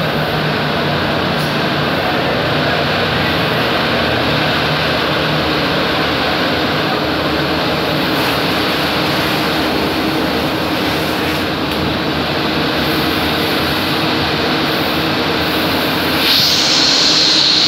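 ABC three-layer co-extrusion blown film line running: a steady industrial drone of extruder drives and the air-ring cooling blower, with a few steady hums under it. About 16 s in, a louder airy hiss joins it.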